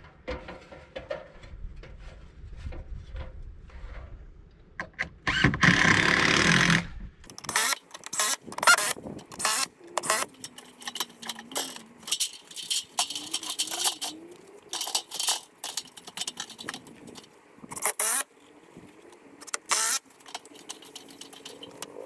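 Clanks, knocks and rattles of an aluminum extension ladder being climbed and then handled and moved against the wooden siding. A loud noisy rush lasts about a second and a half around six seconds in.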